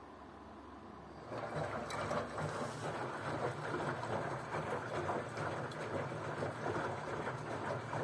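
LG Direct Drive front-loading washing machine tumbling its drum during a cleaning wash, water sloshing and splashing inside. The tumbling starts suddenly about a second in, after a quieter hum.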